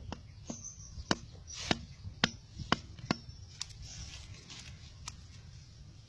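A knife chopping at a wooden stick: sharp, clean knocks about twice a second, thinning out after about three seconds.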